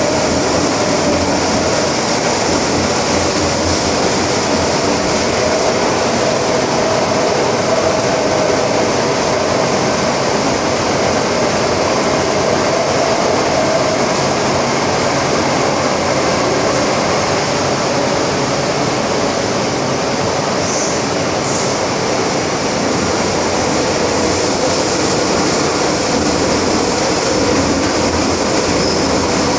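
MTR Island Line M-Train electric multiple unit running at speed through a tunnel, heard from inside the carriage: a loud, steady rush of wheel, rail and tunnel noise.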